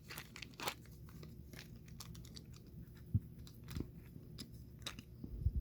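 Faint handling noises of small model parts: scattered light clicks and rustles, with a soft low knock about three seconds in and another near the end.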